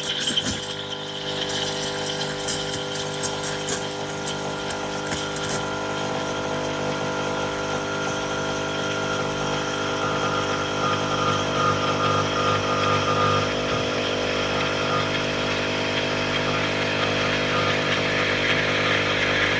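Espresso machine's pump running steadily while pulling a double shot, a constant buzzing hum with a higher whine that swells around the middle.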